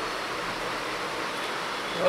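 Steady, even hiss with no speech, holding level throughout.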